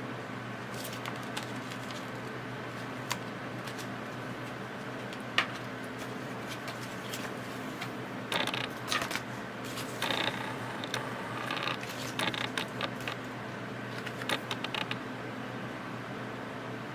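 Scattered small clicks and clusters of short rustles, most of them between about 8 and 15 seconds in, typical of hands working with small-item packaging, over a steady low hum.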